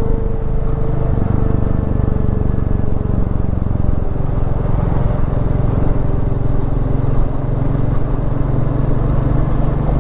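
Royal Enfield Meteor 350's single-cylinder engine running steadily as the motorcycle is ridden along.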